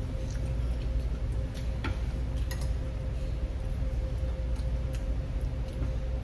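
Steady low hum of a restaurant dining room with a faint constant tone, broken by a few light clicks of chopsticks and utensils against bowls and dishes.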